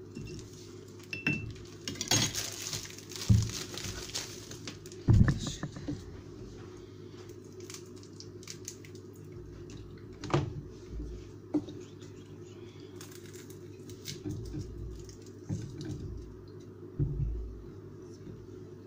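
Scattered clinks and knocks of a metal spoon against a glass jar and a metal jar lid while salt and dried red peppers go into the jar, over a steady low hum.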